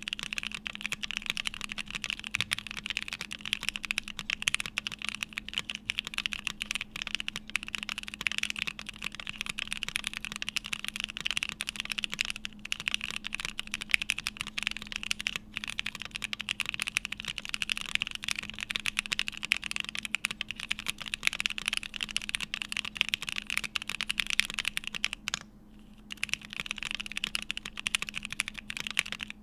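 Typing on a Bakeneko mechanical keyboard with stock Gateron Oil King linear switches, an FR4 plate and CRP keycaps: a dense, continuous run of keystroke clacks, with a short pause near the end.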